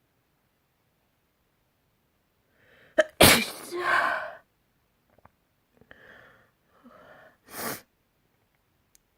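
A person sneezing: a loud, explosive sneeze about three seconds in, trailing off into a vocal 'ah'. Two breathy in-breaths follow, then a second, shorter sneeze near the end.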